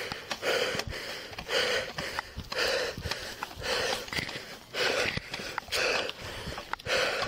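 A man breathing heavily and fast close to a body-worn microphone, about one loud breath a second.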